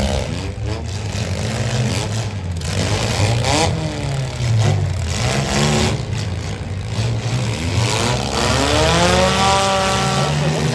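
Several demolition-derby compact cars' engines revving at once, their pitch climbing and falling over and over above a steady engine rumble.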